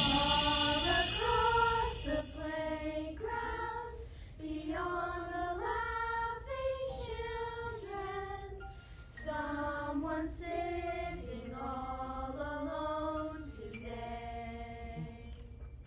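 Group of young girls singing a slow song together in unison, in long held notes with short breaks between phrases.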